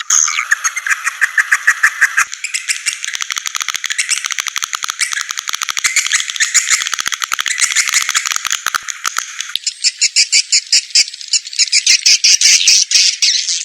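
Swiftlet lure call: dense, rapid high-pitched twittering chirps of swiftlets, the kind of track played from a swiftlet house to draw the birds in. The texture changes about two seconds in and again near ten seconds as the track moves to a new section.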